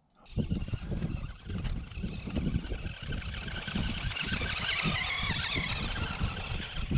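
Toy radio-controlled cars driving across snow-covered ice, their motors running, over low gusting wind on the microphone. The sound starts suddenly just after the start.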